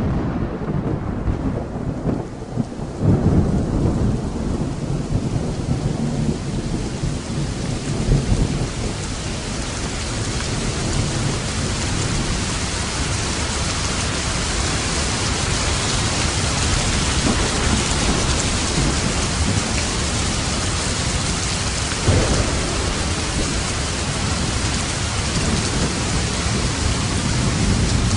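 Steady rain with low, rolling thunder. The thunder is heavier over the first several seconds, with its strongest rumbles a few seconds in and about eight seconds in, while the rain's hiss fills in as it goes. A short, sharp rumble comes about 22 seconds in.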